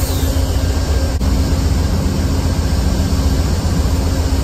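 Diesel locomotive engine running: a steady, loud, low rumble with a constant hum over it, and a single click about a second in.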